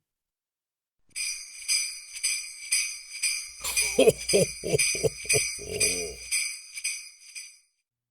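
Jingle bells shaken in an even rhythm, starting about a second in and stopping near the end, with a voice calling out a quick run of short syllables in the middle.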